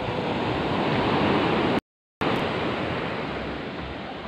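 Waves breaking on a beach: the surf swells to a crash in the first second and a half, then fades as the wash runs out. The sound drops out completely for a moment about two seconds in.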